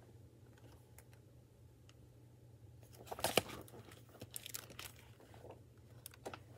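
Pages of a picture book being turned and the book handled: paper rustling and crinkling with small clicks, loudest about three seconds in, over a low steady hum.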